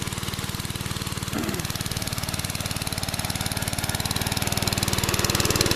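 10-horsepower engine running steadily under load, driving a homemade pressure washer pump, with an even firing rhythm that grows a little louder near the end.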